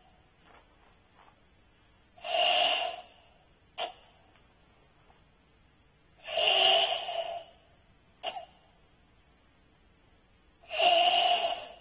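Ibuki breathing in Tensho kata: three long, forceful, hissing exhalations through the mouth, about four seconds apart and each about a second long. The first two are each followed about a second later by a short, sharp breath.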